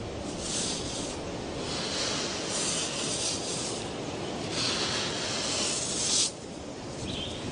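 Sand scraping and rasping as a female crocodile pushes sand over her freshly laid eggs to cover the nest, in about four long scraping bursts.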